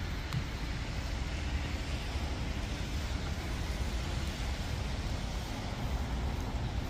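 Steady low rumble and hiss of road traffic on a city street.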